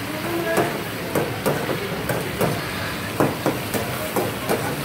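Metal spatula clanking and scraping against a karahi wok while chicken is stir-fried over a gas burner, about three knocks a second over a steady hiss of sizzling oil and burner flame.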